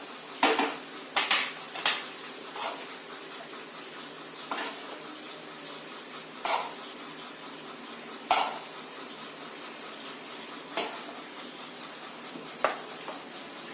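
A metal spoon clinking, knocking and scraping against cooking pans at uneven intervals, about ten strokes in all, as the cooked turnip sabzi is spooned out of the cooking pot into a serving pan.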